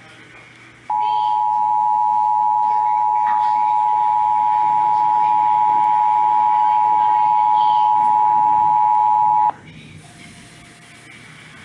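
Emergency Alert System two-tone attention signal (853 Hz and 960 Hz sounded together), a steady unbroken tone starting about a second in and cutting off abruptly after about eight and a half seconds. It is the signal that comes before a spoken emergency alert, here a severe thunderstorm warning.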